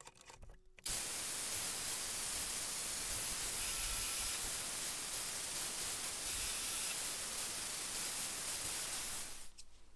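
A steady, even hiss that starts about a second in and cuts off near the end.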